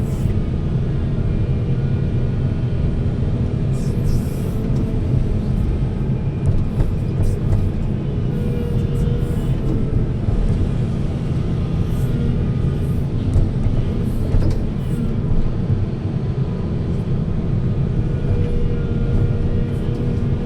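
Heavy diesel earthmoving machinery running steadily with a low drone, with a few brief knocks.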